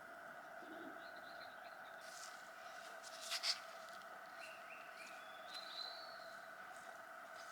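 Faint steady hum with faint high chirps scattered through it, and two sharp clicks in quick succession a little before halfway.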